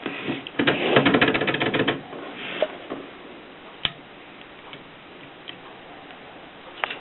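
Torpedo typewriter being typed on: a fast run of key strikes for about a second and a half, then a few single clicks spaced apart.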